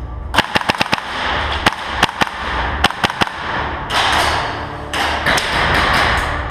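Airsoft guns firing: a quick string of sharp cracks in the first second, then single shots and short bursts of cracks through the rest.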